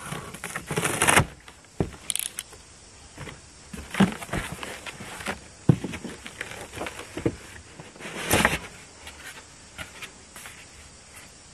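A large cardboard box being opened. A utility knife slits the packing tape and the tape rips, loudest early on. Then the cardboard flaps are folded open with scraping and rustling, and a packing insert is pulled out, with a few knocks along the way.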